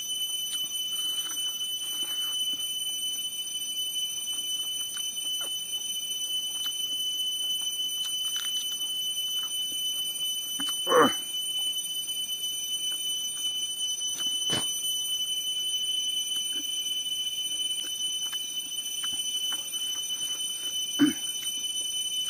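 A steady, high-pitched insect chorus drones without a break. Two short, louder sounds stand out, one about halfway through and one near the end.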